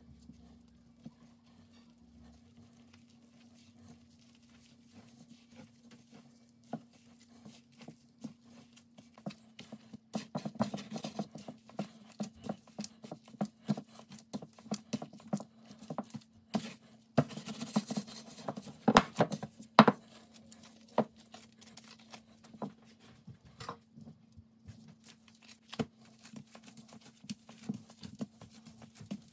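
Gloved hands mixing flour and water into dough in a wooden bowl and then kneading it on a countertop: irregular soft taps, pats and sticky squishes, busiest and loudest about halfway through. A faint steady hum sits underneath.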